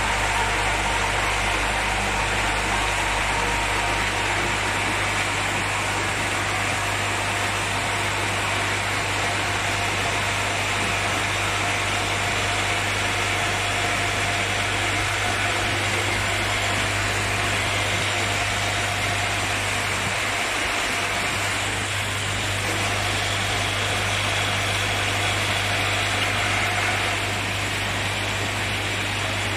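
Watercolor pen assembling machine running: its vibratory bowl feeders give a steady low hum while the pen barrels inside them rattle, over a constant mechanical hiss.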